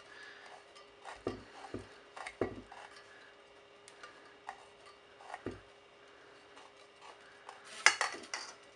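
Small pipe cutter being turned by hand around a thin-walled RC helicopter tail boom to score it, giving scattered faint clicks and light knocks as the tool and tube are handled, with a louder knock near the end. A faint steady hum runs underneath.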